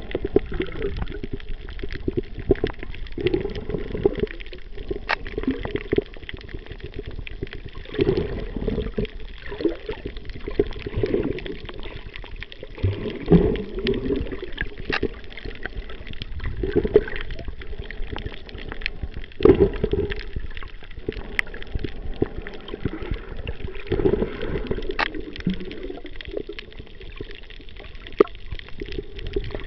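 Muffled underwater sound picked up through a camera held below the surface: water surging and sloshing past the microphone in irregular swells every few seconds, with a few sharp clicks.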